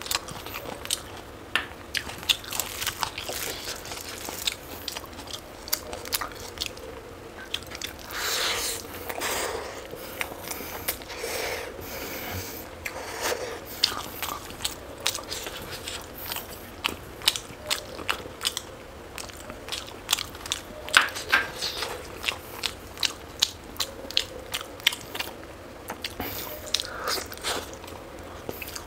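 Close-miked eating: irregular clusters of sharp, crisp bites and chewing, with a few longer wet smeared sounds in the middle.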